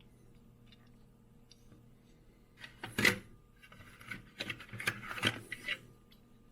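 Clicks and light clatter of small die-cast toy cars being handled and set down, starting about two and a half seconds in, with the sharpest knock just after that and a run of quicker clicks until near the end. Before that only a faint steady hum.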